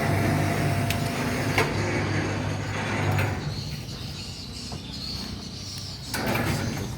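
An engine running with a steady low hum and a sharp knock about one and a half seconds in. The hum drops away about three seconds in and comes back louder near the end.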